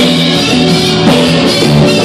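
Live rock band playing loudly, with drum kit, guitar and bass, notes changing every fraction of a second.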